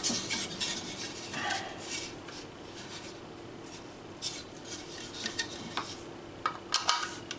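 Scattered clicks and light knocks from a hard plastic GPS mounting bracket being handled and turned over in the hands, with a quick run of clicks near the end. A faint steady hum lies underneath.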